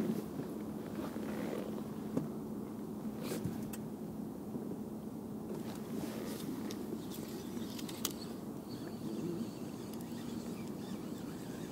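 Handling of a fishing rod with a spinning reel: scattered clicks and rustles of hands, rod and reel over a steady low hum.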